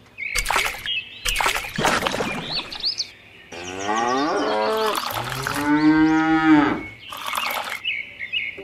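A cow mooing once: a single long call that starts about three and a half seconds in, lasts about three seconds, and rises and then falls in pitch. Before it come a few short noisy bursts, and another follows near the end.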